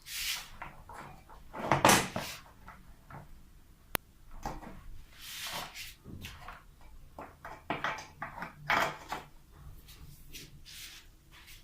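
Irregular scraping, rattling and knocking of motorcycle body parts being worked loose and pulled out by hand, with a sharp click about 4 seconds in; the loudest scrapes come about 2 and 9 seconds in.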